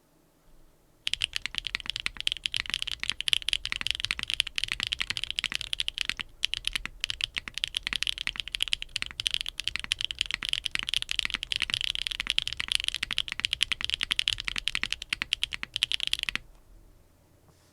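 Continuous fast typing on a mechanical keyboard fitted with Akko x HMX Cilantro tactile switches, a carbon fiber plate and no foam, under GMK keycaps. It gives a rapid stream of high-pitched clacks that starts about a second in, pauses briefly about six seconds in, and stops a little over a second before the end.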